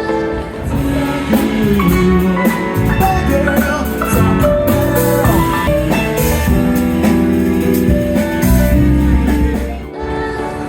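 Background music with guitar, a drum kit and singing.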